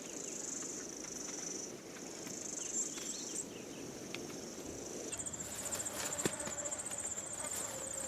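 Insects trilling: a steady high buzz, joined about five seconds in by a fast, evenly pulsing high trill.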